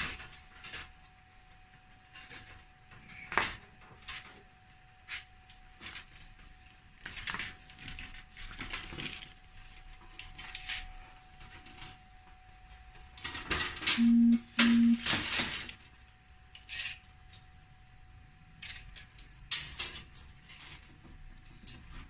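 Thin metal sheets, spare freezer evaporator plates, being handled and shifted, giving scattered clinks, knocks and rustles, busiest around the middle. Two short low beeps sound in quick succession about fourteen seconds in.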